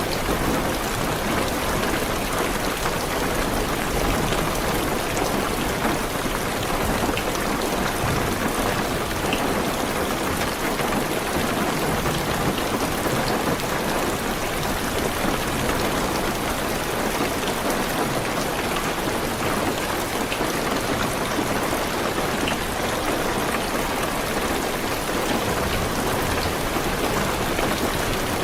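Heavy rain falling steadily on a car's roof and windows, a dense, even patter heard from inside the car.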